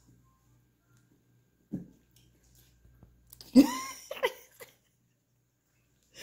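Low steady hum, with a dull knock about two seconds in. About halfway through comes a short cry that rises and falls in pitch, followed by a shorter second one; it is the loudest sound.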